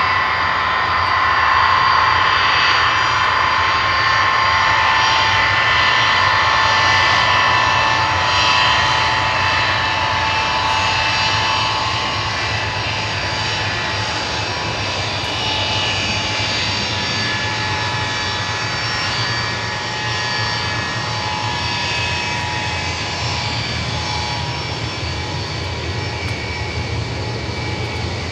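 Il-76LL flying testbed taxiing past with its four turbofans running, one of them a PD-14 under test. Its engines give a steady high whine over a low rumble, which eases slightly about halfway through as the aircraft goes by.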